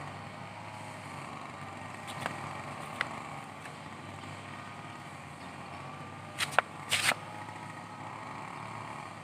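Steady outdoor hum of distant engine traffic, broken by a few sharp clicks and, about two-thirds of the way in, a short cluster of louder clacks.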